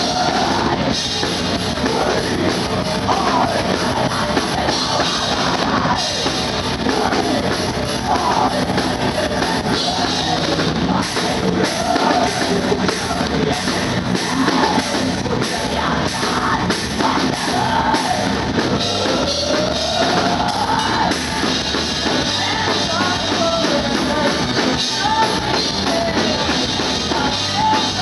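Heavy metal band playing live: electric guitar and drum kit with a woman singing into the microphone, one continuous loud song.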